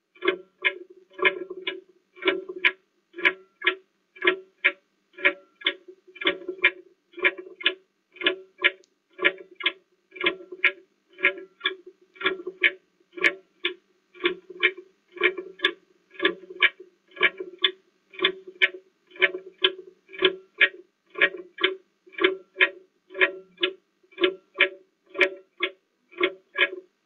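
Background music during a 30-second answering time: a repeating plucked-string figure, in short, evenly spaced notes about three a second.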